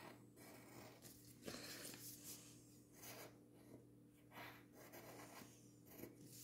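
Faint scratching of a pencil on paper in short, irregular strokes as small triangles are drawn.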